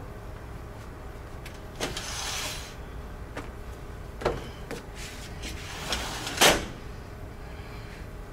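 Kitchen handling sounds: a few sharp knocks and clicks and two short swishing noises, the loudest knock about six and a half seconds in.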